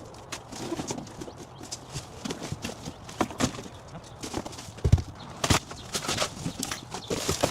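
Irregular knocks, clunks and clatter of household items being picked up, shifted and set down, with a heavy thump about five seconds in.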